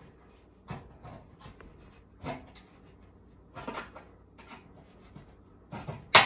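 A Volkswagen Super Beetle's steel door skin is pulled by hand, with a few short strained sounds. About six seconds in, a sharp snap is heard as a drilled-out spot weld pops loose.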